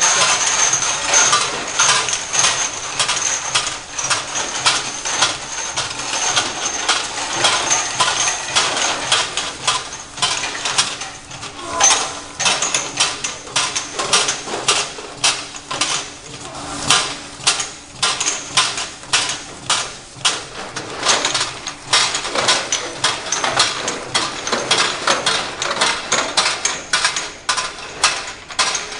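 Horizontal bottle labeling machine running, its small red-capped bottles clinking and clicking against each other and the conveyor rollers several times a second as they are fed through and labeled, over a steady machine hum.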